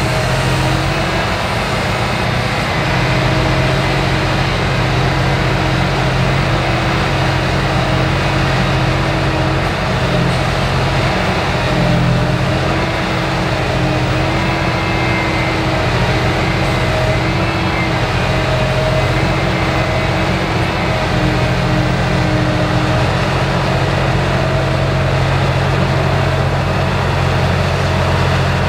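Heavy diesel engines of a Cat 6020B hydraulic mining shovel and a stationary Cat 777 haul truck running with a steady, unbroken drone while the shovel swings.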